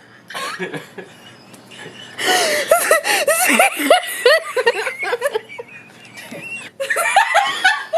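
A woman's wheezing laughter: high-pitched, breathy fits of laughing, building to a long loud run about two seconds in, easing off, then breaking out again near the end.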